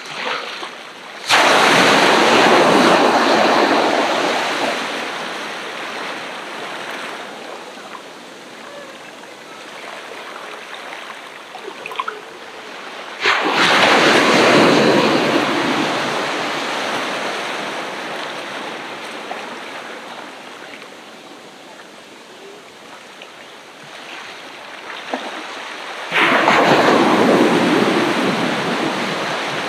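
Ocean waves breaking on the shore: three breakers about thirteen seconds apart, each crashing in suddenly and then washing out slowly.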